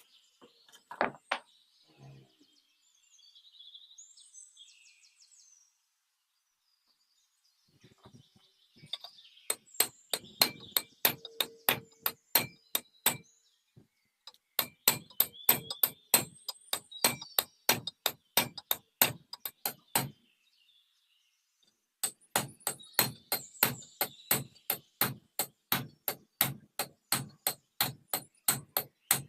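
Hammer blows on metal in three quick runs of about three strikes a second, with short pauses between, as parts of a sugarcane juice machine are worked on. Faint bird chirps are heard early on.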